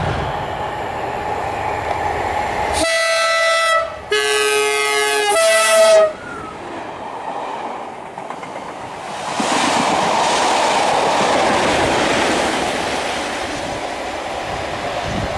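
Class 37 diesel locomotive sounding its horn in three notes about three seconds in, high, then lower, then high again and loudest, over the drone of its English Electric V12 engine. From about halfway the test train rushes through with loud wheel and engine noise that slowly fades.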